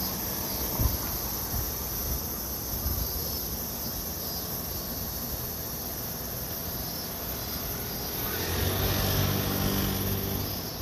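Steady traffic hum with a constant high insect drone. From about eight seconds in, a small motorbike passes close by and its engine swells, then fades.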